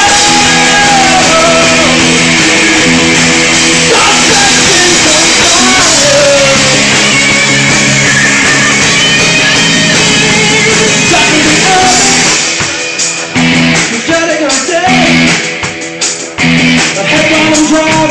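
Live rock band playing: guitars, bass and drums, loud and dense. About twelve seconds in, the sound thins out to a sparser, choppier guitar part.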